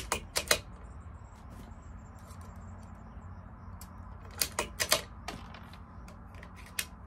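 Bolt of a CZ 457 .22 rimfire rifle being worked: two quick runs of sharp metallic clicks, one at the start and another about four and a half seconds in.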